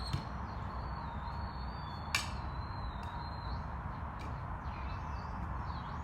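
Steady outdoor background noise with a faint, thin, high wavering tone, and one sharp knock about two seconds in.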